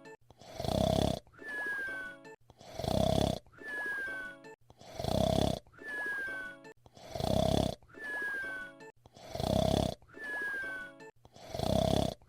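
Fred Flintstone's cartoon whistle-snore: a loud snore on the in-breath, then a thin whistle falling in pitch on the out-breath, repeating evenly about every two seconds.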